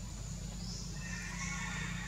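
A drawn-out, wavering high-pitched animal cry begins about a second in, over a steady low rumble.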